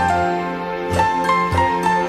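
Background music: a melody of held notes over a steady low bass pulse.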